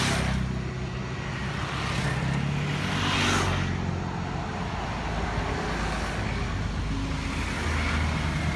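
Road traffic passing close by: scooters and a city bus drive past with engine hum and tyre noise. The sound swells as each vehicle goes by and is loudest about three seconds in.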